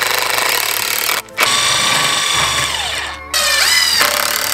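Cordless power drill/driver running in three long trigger bursts, driving screws into the wooden door frame; the motor pitch falls as one burst winds down and rises again as the next starts.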